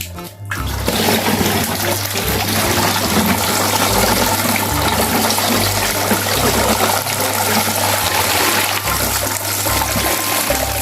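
Water running and splashing steadily, washing sand off a plastic toy truck. It starts about half a second in.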